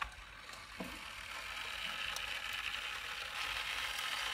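Metal lid and parts of a Weber charcoal kettle grill being handled: a sharp click, then a knock about a second in. After that comes a steady sizzle that grows louder, from hot water and fat in the drip pan inside the grill.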